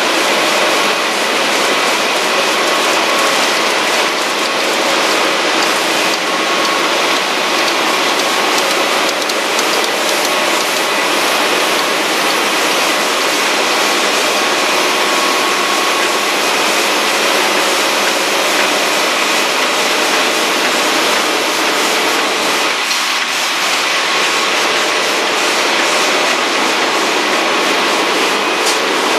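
Heidelberg Speedmaster 102 SPP sheetfed offset press running: a loud, steady mechanical din with faint steady tones underneath.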